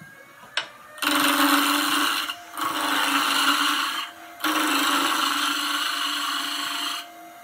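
Roughing gouge cutting into a square wood blank spinning on a lathe, knocking off the corners. After a sharp tap about half a second in, the cut comes in three loud passes of roughly one and a half, one and a half and two and a half seconds, with the lathe's faint steady hum in the short gaps.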